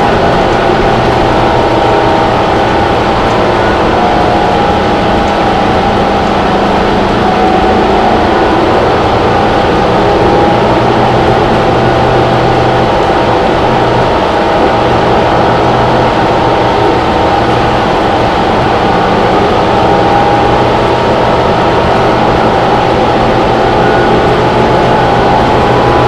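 Cummins ISL9 inline-six turbodiesel and Allison six-speed automatic of a 2011 New Flyer Xcelsior XD40 bus, heard from inside the cabin as the bus drives along. It is a loud, steady engine drone with a higher whine over it and road noise.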